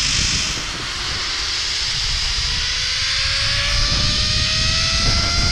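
Zip line trolley pulleys running along the steel cable: a thin whine that rises slowly in pitch as the rider picks up speed, under heavy wind noise buffeting the microphone.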